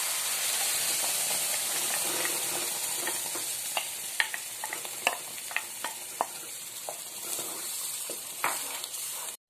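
Spinach purée hitting hot oil and fried spices in a pan, sizzling steadily while a wooden spatula stirs it, with scattered small clicks and pops. The sizzle slowly fades and cuts off suddenly near the end.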